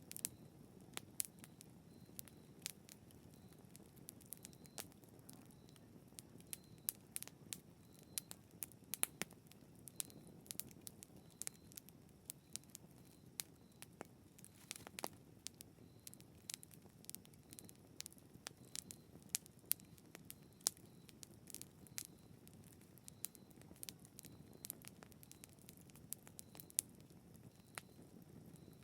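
Wood campfire crackling quietly, with irregular sharp pops over the soft hiss of the burning fire.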